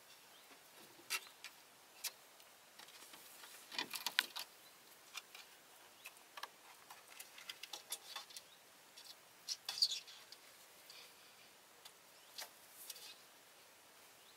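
Playing kittens' paws and claws tapping and scratching on a glass pane and a concrete step: irregular light clicks and scuffles, busiest about four seconds and ten seconds in.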